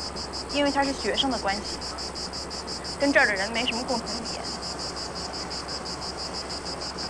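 Insects chirring in a high, steady pulsing rhythm, a summer background. Two short snatches of a voice come through, about a second in and about three seconds in.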